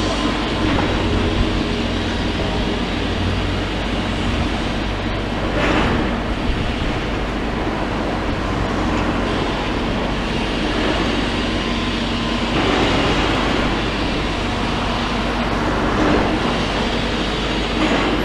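Heavy diesel demolition machinery running steadily with a low engine hum, with a few brief louder surges about six, thirteen and sixteen seconds in.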